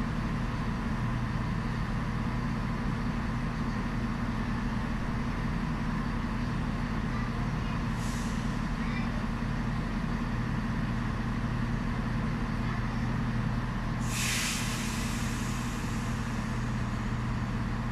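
Class 170 Turbostar diesel multiple unit standing at the platform, its underfloor diesel engines idling in a steady low hum. Two hisses of air from its brake system cut through: a short one about eight seconds in and a longer, louder one about fourteen seconds in.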